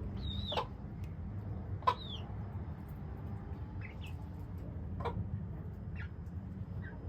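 Swedish Flower chick peeping with a few high, falling peeps, mixed with short, sharp hen clucks spaced a second or more apart, over a steady low hum.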